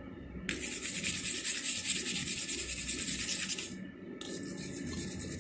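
Wire brush scrubbing scale off a hot hand-forged metal hook, a dense scratchy rasp made of quick brushing strokes. It starts about half a second in, stops near four seconds in, and gives way to lighter scraping.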